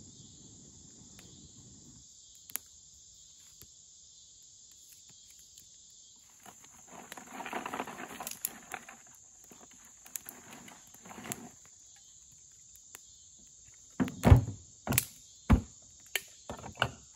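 Steady high-pitched insect chorus over a campfire. Early on, a low rush of air blown into the kindling through a metal fire blow pipe stops about two seconds in. From about fourteen seconds, a run of sharp, loud cracks sounds as dry sticks are snapped for kindling.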